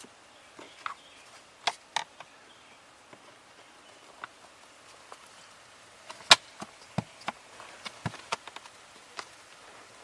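Scattered sharp plastic clicks and knocks from the cabin air filter access door of a Hyundai Sonata's HVAC housing being pressed and snapped into place. The loudest click comes about six seconds in, with a quick run of smaller ones after it.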